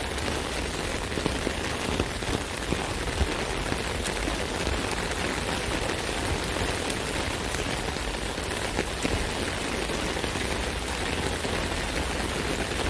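Rain falling on an umbrella: a steady, dense patter of drops hitting the canopy, with now and then a slightly louder single drop.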